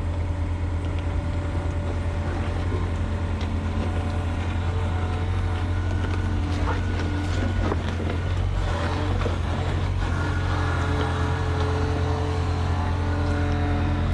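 Mini excavator's diesel engine running steadily, with a few metallic knocks and rattles about seven to nine seconds in.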